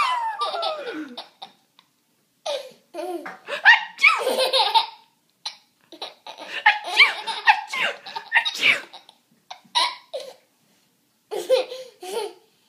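Young child laughing in repeated high-pitched bursts, with short breaks between the fits.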